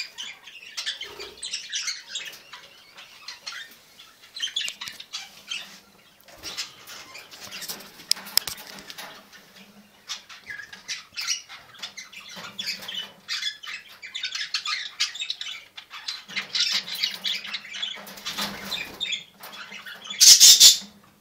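Budgerigars chattering and chirping in irregular, overlapping bursts, with a brief loud noisy burst near the end.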